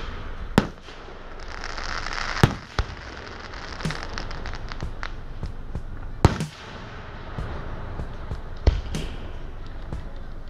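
Aerial fireworks going off: four loud booms a few seconds apart, with smaller pops and crackles between them and a brief hissing swell between the first two booms.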